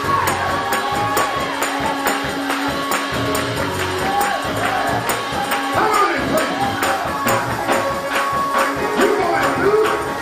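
Gospel praise music in church: a tambourine keeps a fast, steady beat over held instrument notes, with voices singing and shouting along.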